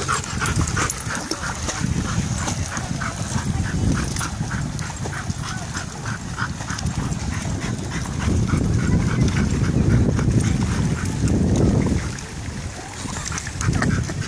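Dog whining over and over in short, quick cries, about two a second, while wind rumbles on the microphone.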